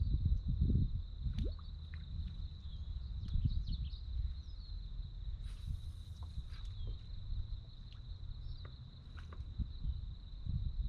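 Outdoor lake ambience heard from a kayak: a steady low rumble with small water drips and knocks, scattered short bird chirps, and a thin steady high-pitched buzz; a brief hiss about halfway through.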